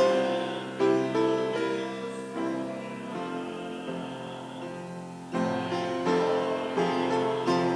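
Hymn music on piano: sustained chords, with a fresh chord struck about a second in and a louder one about five seconds in.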